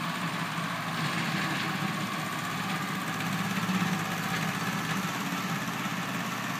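Small petrol lawn-mower engine running steadily in the tall grass.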